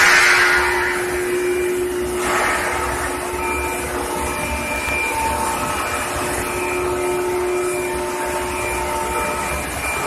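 Steady machinery noise of a carbon-steel induction heating and quenching line: a continuous hiss with a few faint steady tones. The hiss is stronger at the start and swells again briefly about two seconds in.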